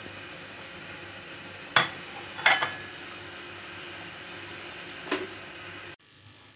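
Kitchenware clinking: three sharp, briefly ringing clinks, the second a quick double, over a steady background hiss that cuts off abruptly near the end.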